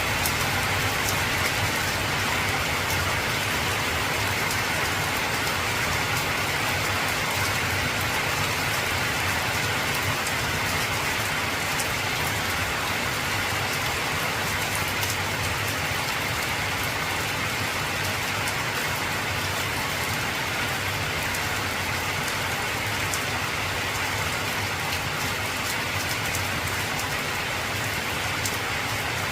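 Heavy rain falling steadily on an old corrugated zinc (tin) roof, a dense hiss with many sharp individual drop ticks on the metal.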